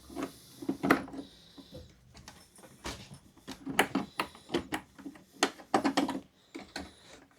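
Irregular clicks, taps and knocks of plastic and metal parts being handled as the motor cable is fed into the Inmotion V9 electric unicycle's shell.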